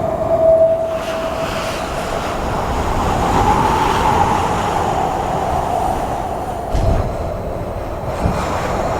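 A moving vehicle's steady rumble with a whine that wavers and rises slightly in pitch, and a couple of brief low knocks near the end.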